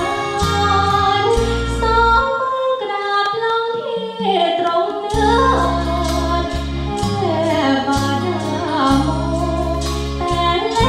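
A girl singing a Thai luk thung song into a microphone over an instrumental accompaniment with bass and cymbals. The bass drops out for a few seconds near the middle, then comes back under the voice.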